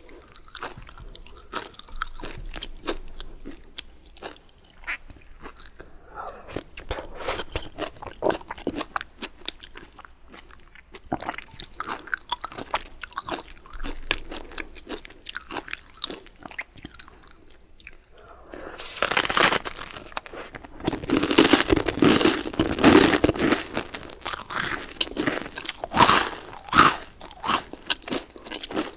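Close-miked eating sounds: soft chewing and mouth clicks, then from about nineteen seconds in a louder run of crunchy biting and chewing, most likely of baguette.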